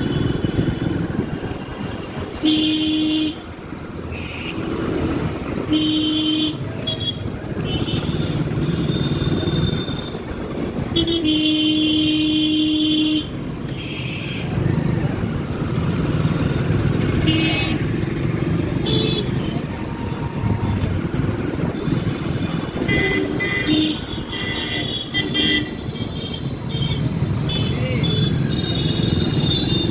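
Busy city street traffic heard from a moving motorbike: steady engine and road noise, with vehicle horns honking several times, including one long honk of about two seconds around twelve seconds in.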